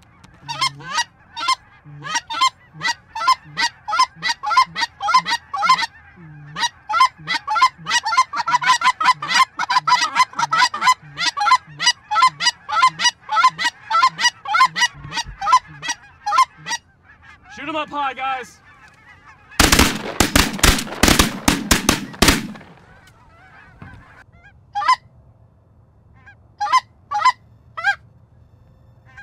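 Geese honking and clucking in a rapid, continuous chatter for most of the first seventeen seconds. About twenty seconds in comes a short, very loud, dense flurry of calls, and a few scattered honks follow near the end.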